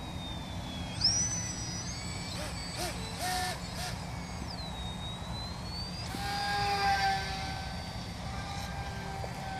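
Electric motor and propeller of a Nanoplanes Babyshark 4S model plane whining high overhead, the pitch jumping up about a second in, sinking back midway, and climbing again as the throttle and distance change. A lower drone swells and fades near the end, over a steady rumble of wind and distant traffic.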